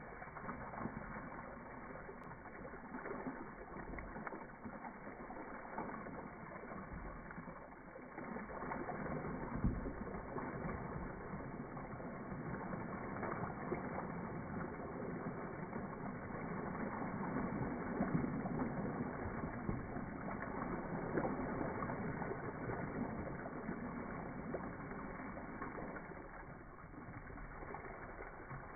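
Water rushing down a small rock-lined channel and splashing over the stones, a steady rushing noise that grows about eight seconds in, is loudest in the middle and eases near the end.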